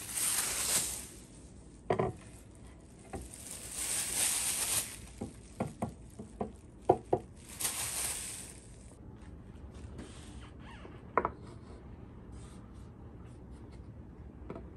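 Clear plastic wrapping crinkling and rustling in three bursts as it is pulled off a walnut cutting board, with a few light knocks of the wooden board against the workbench in between. After about nine seconds it is quieter, apart from a single click.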